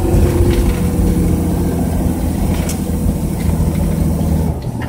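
Truck engine drone and road noise heard inside the cab while cruising at highway speed, with a steady low hum. The level drops a little near the end.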